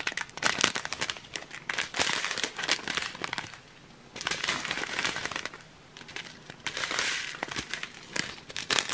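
Small zip-lock plastic bags of round diamond-painting drills crinkling as they are handled and squeezed, in bursts with two short pauses.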